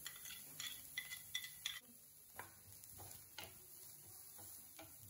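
Faint clinks and taps of kitchenware on a non-stick frying pan. A plate knocks against the pan a few times with short ringing clinks as chopped onion is tipped in during the first two seconds, then a wooden spatula taps and scrapes as it stirs the onion around the pan.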